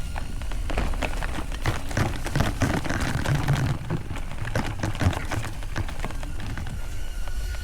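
Mountain bike rolling over a rough trail: a dense, irregular crackle and rattle of tyres and bike over the ground, over a steady low rumble of wind on the microphone.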